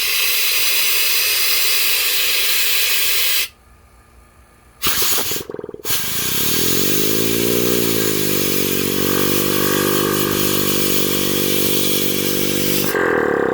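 Compressed gas hissing into a Copeland scroll compressor, cut off twice briefly; after the second restart the scroll spins backwards and adds a humming tone that rises in pitch and then holds steady, the compressor running as a gas-driven generator. Near the end the hum stops while the gas keeps hissing.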